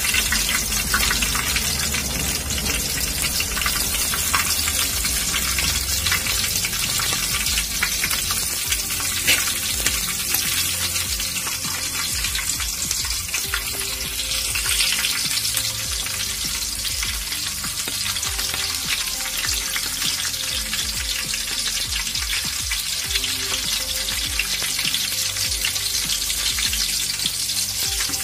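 Slit green chillies and whole spices frying in hot oil in a large pot, with a steady sizzle and fine crackling.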